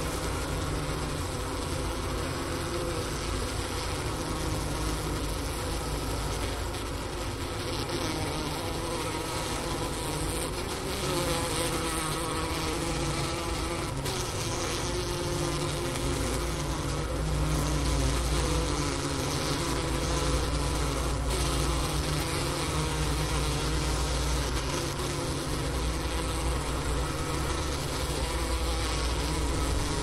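Overwintering honeybee colony humming inside the hive, heard close up at the inner cover: a steady buzzing hum of several wavering pitches, over a low rumble that grows stronger about halfway through.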